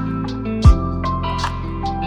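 Background music: held melodic notes over a beat, with one deep kick-drum thump about a third of the way in.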